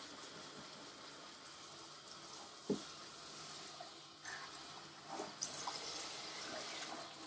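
Water spraying from a grooming tub's hand-held hose sprayer, rinsing pink dye splatter off the tub. A steady hiss with a single knock a little before three seconds in; the spray grows louder about five seconds in.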